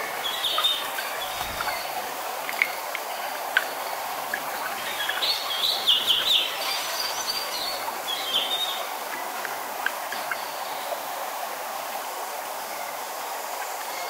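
Steady rush of a small waterfall and wind in the forest, with birds chirping now and then, most busily about halfway through.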